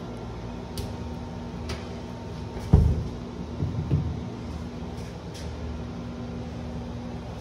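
A hollow interior closet door is pushed shut with one loud thump about three seconds in. A few softer knocks of the door and handling follow, with a couple of light clicks before it. A steady low hum runs underneath.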